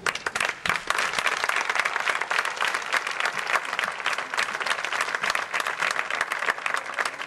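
Audience applauding: dense, steady clapping that starts suddenly and keeps going.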